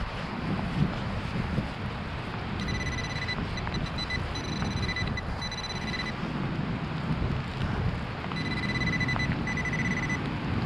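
A metal detector's high buzzing target tone sounds in several on-and-off stretches, starting a few seconds in and returning near the end, signalling a buried target. Wind rumbles steadily on the microphone underneath.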